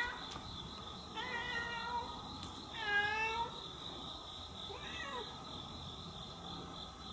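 Domestic cat meowing: three meows about two seconds apart, the middle one loudest with a dipping pitch, the last one fainter and falling.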